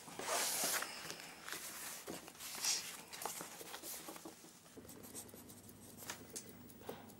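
Writing on paper: irregular quick scratching strokes of a nib or pencil point moving across the page, with a louder rustle of paper in the first second.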